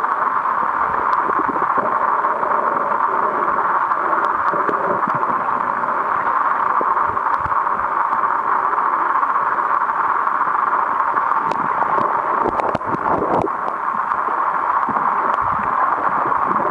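Steady water noise picked up by a camera held underwater while snorkelling, with scattered faint clicks and a short cluster of knocks about twelve seconds in.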